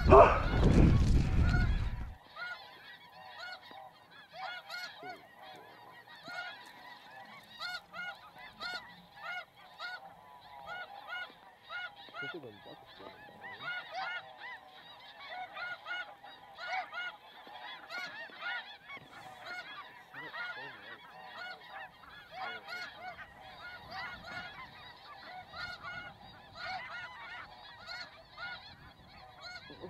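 A large flock of snow geese calling in flight, distant and high overhead: many short, high-pitched honks overlapping continuously. A louder burst of sound fills the first two seconds before the calling takes over.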